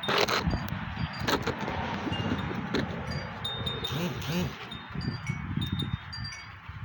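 Wind chimes tinkling, single notes at a few fixed pitches ringing out now and then, over gusty wind rumbling on the microphone. Brief rustling bursts sound near the start and about a second in.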